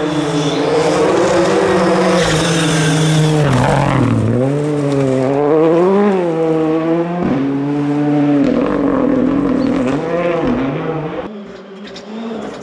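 Ford Fiesta rally car at full throttle on a gravel stage. The engine revs rise and fall sharply through several gear changes and lifts as it takes a corner, with gravel spraying from the tyres. Near the end a second rally car is heard farther off, quieter.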